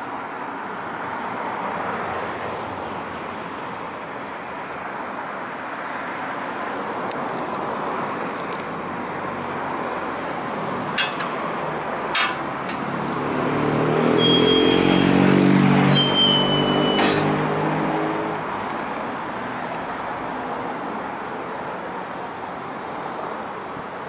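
A road vehicle's engine passes over a steady rushing background, swelling a little past halfway and fading a few seconds later, with brief high squeaks as it passes. Two sharp clicks come just before it.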